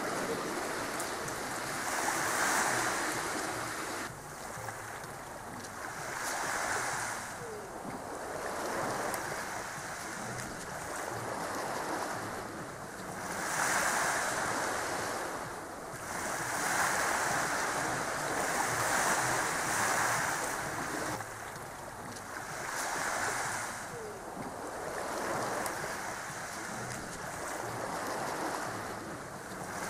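Sea waves washing onto the shore: a rush of surf that swells and fades every few seconds.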